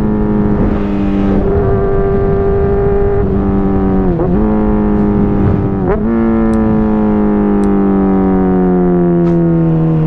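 Honda CBR600RR inline-four engine running through a Hotbodies Stinger slip-on exhaust, held at steady high revs while riding. The pitch dips briefly and recovers about four seconds in and again about six seconds in, then slowly winds down over the last few seconds.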